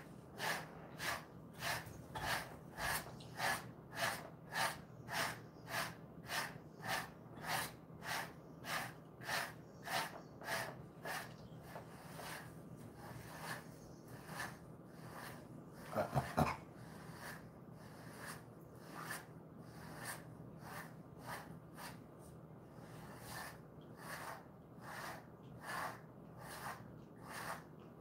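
A pet brush stroked through a dog's fur, about two brisk strokes a second, steady at first and then lighter and less regular. About halfway through there is one short louder noise.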